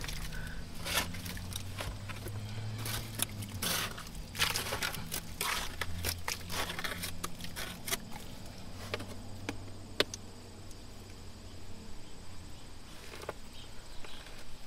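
Bare hands digging and scraping through loose privy soil: irregular scratching and crumbling strokes, with one sharp click about ten seconds in. A low steady hum runs underneath.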